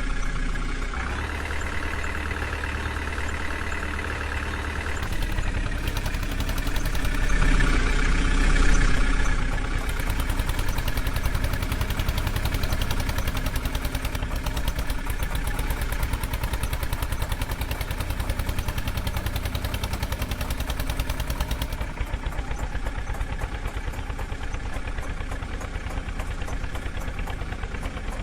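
Heavy diesel engine running, revved up about a second in and again, at its loudest, around eight seconds in, then settling to a steady run with an even rhythmic pulse.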